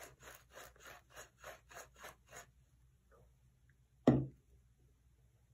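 Hand pepper mill grinding black pepper, a short rasping crunch about four times a second for two and a half seconds, then a single loud knock about four seconds in.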